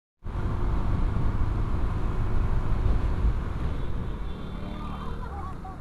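A Honda Vario scooter ridden at speed on a stock exhaust, heard through a helmet-camera microphone: a dense low rumble of wind buffeting and engine and road noise. It cuts in abruptly just after the start and eases a little past the middle.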